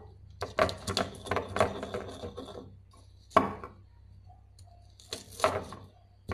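Stone pestle (ulekan) grinding chillies, shallots, garlic and salt to a paste in a stone cobek mortar: a quick run of scraping, knocking strokes for about two seconds, one sharp knock a little after three seconds in, then another short run of strokes near the end.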